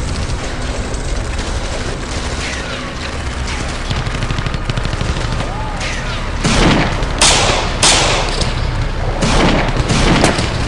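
Gunfire sound effects: a steady low rumble with faint crackle of shooting, then from about six and a half seconds in several loud, sharp gunshots in quick succession.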